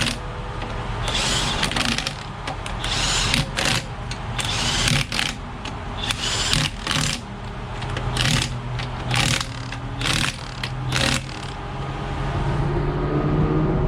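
Impact wrench running in repeated short bursts, spinning lug nuts off a race car's wheel.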